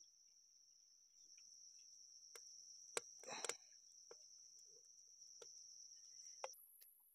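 Faint, steady high-pitched chirring of night insects, likely crickets, which jumps to a higher pitch near the end. Over it come a few light clicks and a short rustle of handling about three seconds in.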